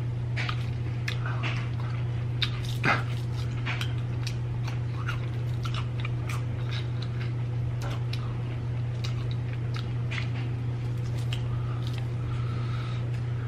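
Close-up chewing of cheese-covered fried chicken, with irregular wet smacking and crunchy clicks. A steady low hum runs underneath.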